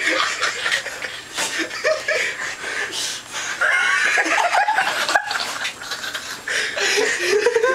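A group of young men laughing hard and breathlessly, with a few sharp knocks and slaps from roughhousing on a bed.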